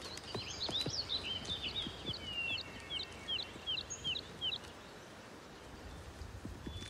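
A small songbird singing a quick run of short, chirping notes for the first four and a half seconds, over faint woodland ambience.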